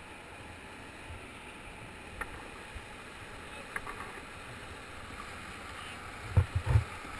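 River rapids rushing steadily past a whitewater kayak, heard from a deck-mounted action camera, with a few light knocks. About six seconds in comes a quick cluster of heavy low thumps, the loudest sounds.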